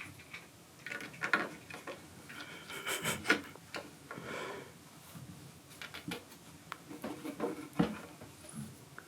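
Kittens scrambling about and chewing on their playhouse: soft irregular rubbing, scratching and small taps, with a few sharper knocks.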